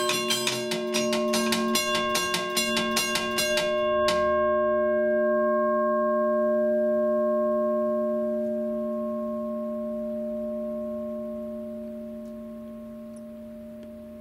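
Electromechanical teardrop railroad crossing bell ringing, its striker hitting the gong about four times a second. The striking stops about four seconds in, and the gong keeps ringing and slowly fades.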